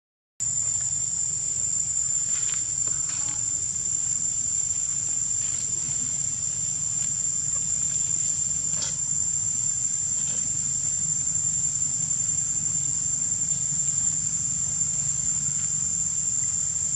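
Steady, high-pitched insect chorus buzzing without a break over a low background hum. The sound drops out for a moment right at the start.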